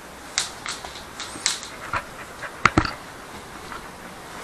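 Dog mouthing and tugging a braided rope toy right at the microphone: an irregular string of short, sharp sounds, the loudest two close together near three seconds in.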